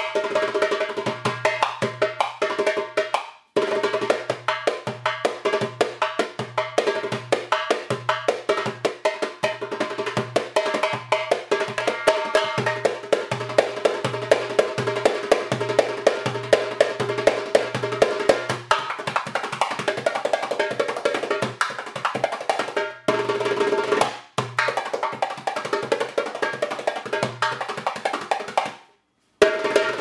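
Arabic-style instrumental background music, with a busy, steady drum and wood-block rhythm over held melodic notes. It breaks off briefly a few times, once near the start and twice more toward the end.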